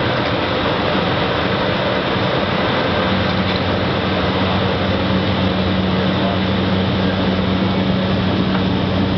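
Small propeller plane's engine and propeller at takeoff power, heard from inside the cockpit during the takeoff roll: a loud, steady drone whose low hum grows stronger about three seconds in.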